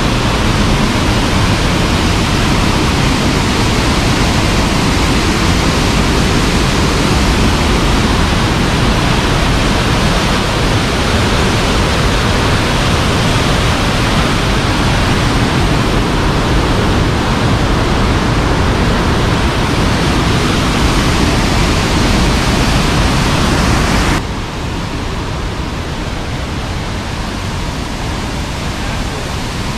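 Large waterfall in heavy flow: a loud, steady rush of falling water. The level drops suddenly about three-quarters of the way through and the rush carries on, quieter.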